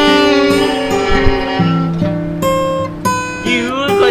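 Stringed-instrument music: a slow melody of held notes, with gliding pitches near the end.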